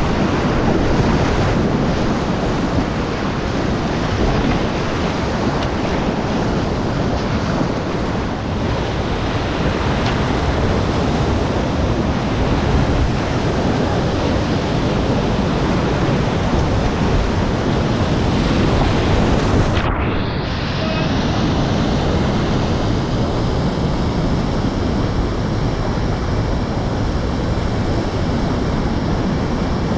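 Whitewater of a boulder-strewn river rapid rushing loudly and steadily. About two-thirds of the way through the sound changes abruptly, with less of the high hiss of spray.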